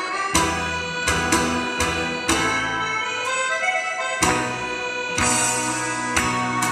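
Instrumental intro of a Korean trot song's backing track: a melody over chords with a steady beat, a strong hit about once a second.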